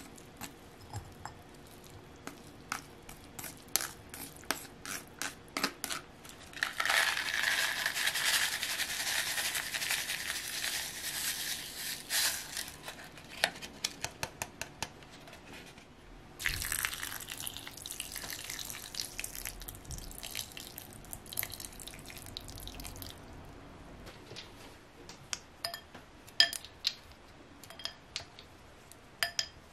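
Cooked rice tipped from a plastic colander into a cut-glass bowl, with small taps and clicks. Then come two stretches of hissing several seconds long; the second is cold tea being poured over the rice. Near the end, ice cubes clink against the glass bowl.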